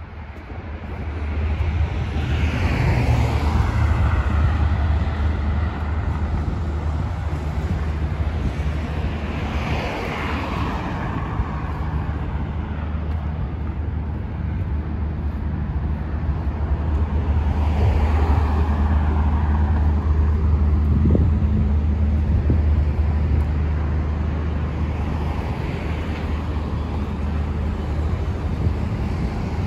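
Road traffic: cars passing by one after another, each swelling and fading, about four times, over a steady low rumble.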